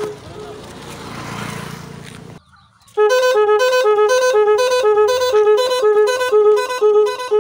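E-rickshaw electronic musical horn playing a repeating tune of bright, beeping notes. It starts about three seconds in, after a brief rushing noise and a short gap of silence.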